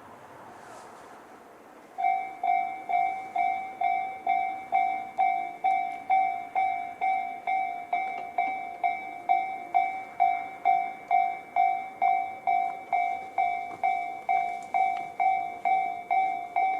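Electronic level-crossing alarm in Tobu Railway's 'C' tone, sounding from both sides of the crossing. It starts about two seconds in as a bell-like ding repeating nearly three times a second, each strike dying away. It is the warning that a train is approaching.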